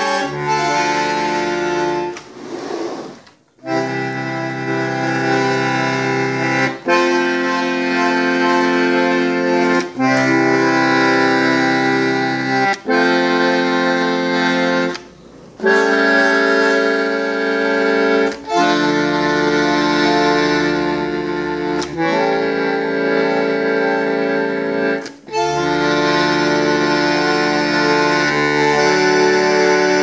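1927 German ELA bandoneon played as a slow run of sustained chords, each held for about two to three seconds before the next, with two brief breaks in the playing.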